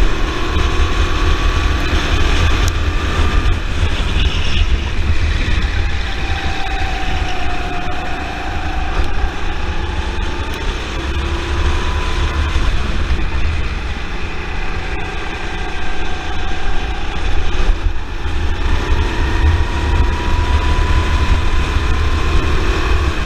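Go-kart's Honda four-stroke engine running under load. Its pitch falls and climbs again with the kart's speed, twice, over a heavy wind rumble on the onboard microphone.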